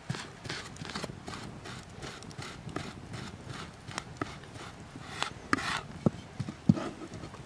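Large knife mincing garlic on a wooden cutting board: irregular knocks of the blade on the wood, about three a second, with a short scrape of the blade across the board late on.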